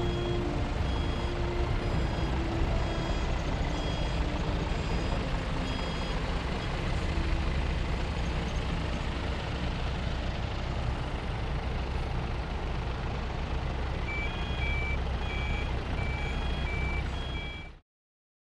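Fire engine's diesel engine running while its reversing alarm beeps about once a second; a second, lower-pitched reversing beeper joins near the end. The sound cuts off abruptly just before the end.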